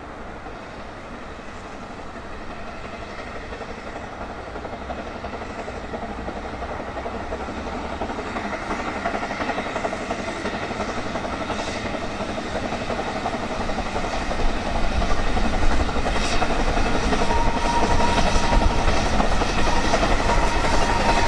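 Narrow-gauge steam train approaching, its running and wheel clatter growing steadily louder. Near the end a thin, high, steady squeal joins in.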